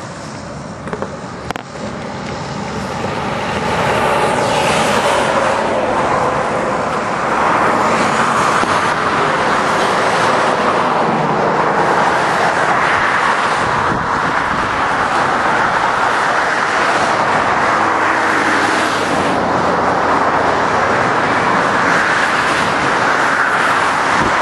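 Car being driven hard: a loud, steady vehicle noise that builds over the first few seconds and then holds.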